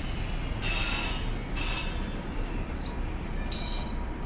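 Steady machine rumble with three short hisses of spraying water: two about a second apart, then a third near the end, from a garden hose being worked at a pressure washer's inlet.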